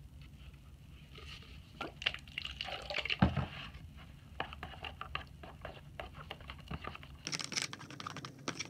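Thick slime being stirred in a plastic tub with a utensil, making irregular wet, sticky squelches and clicks, loudest about three seconds in, as the saline activator is worked in.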